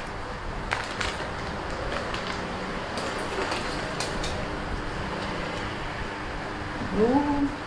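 Steady background hiss with a few faint clicks, and a short rising voice-like sound about seven seconds in.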